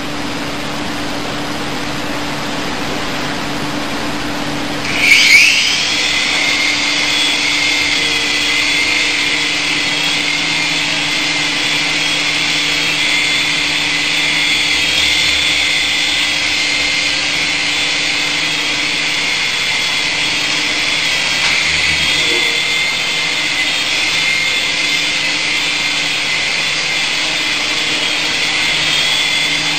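Small electric motors of a Syma S107 coaxial toy RC helicopter starting up about five seconds in, then running as a steady high whine with rotor whirr.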